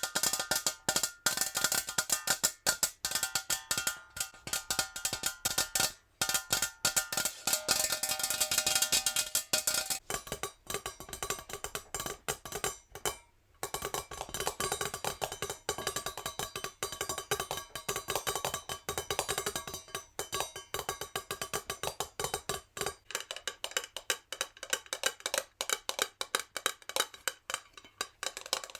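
Natural fingernails tapping very fast on a metal jar: a dense run of light clicks, each with a short metallic ring. The ringing changes about ten seconds in and again near 23 seconds, with a brief pause about 13 seconds in.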